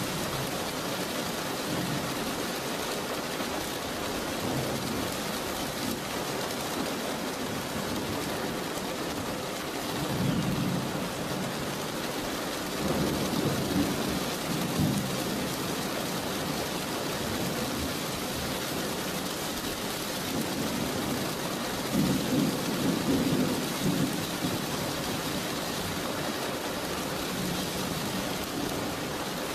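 Steady rain falling during a thunderstorm, with rolls of thunder about ten seconds in, again around thirteen to fifteen seconds, and again around twenty-two seconds.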